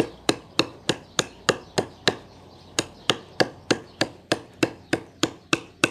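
Heavy 6 mm-thick Dobleoknives Ronin fixed-blade knife chopping into a thin green branch, machete-style: a steady run of sharp chops at about three a second, with a short pause a little over two seconds in.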